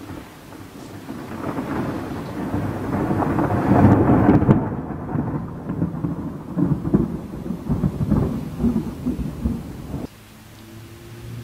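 Close thunder rolling. It swells over about four seconds to a loud peak, then rumbles on in uneven pulses before cutting off suddenly about ten seconds in.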